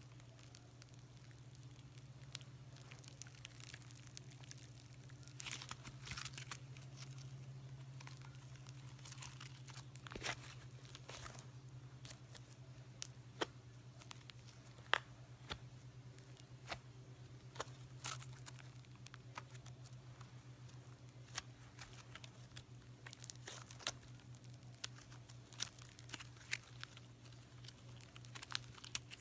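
Hands kneading and stretching fluffy slime made from white glue and shaving cream, giving faint, irregular sticky pops and soft tearing crackles, over a steady low electrical hum.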